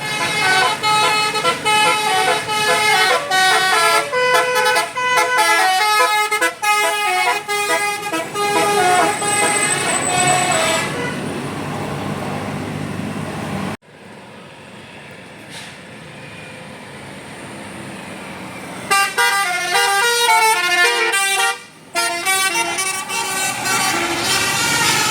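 Basuri telolet musical air horn on a bus playing a rapid multi-note tune. It gives way to engine and road noise for several seconds, and the tune briefly returns about three-quarters of the way through.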